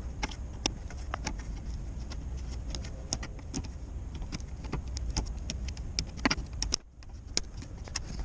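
Irregular clicks, taps and light knocks of hands and tools working an aftermarket intake air filter loose in an engine bay, over a steady low rumble that stops near the end.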